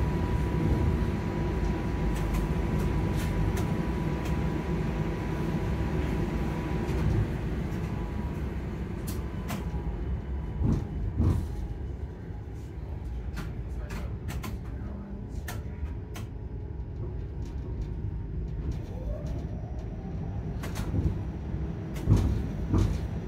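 TTC streetcar running along its track, heard from on board: a steady low rumble with a thin whine that fades out after about seven seconds. Scattered clicks and knocks come from the car, bunched about ten seconds in and again near the end.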